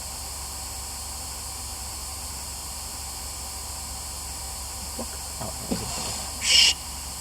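Steady hiss with a low hum underneath, broken about five to six seconds in by a few faint short sounds and, about six and a half seconds in, a brief sharp hissing burst.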